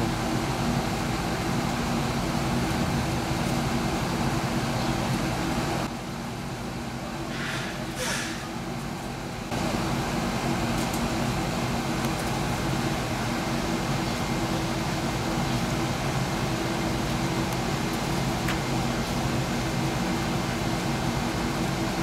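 Carrier air conditioner's outdoor unit running in cooling mode: a steady hum of the compressor and condenser fan. It dips quieter for about three seconds about six seconds in.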